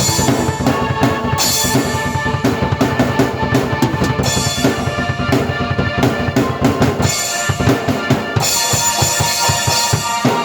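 Drum kit and keyboard playing an up-tempo instrumental together: a busy beat of kick and snare hits under sustained keyboard chords. About seven seconds in, the deep bass drops away and the kick hits stand out more sharply.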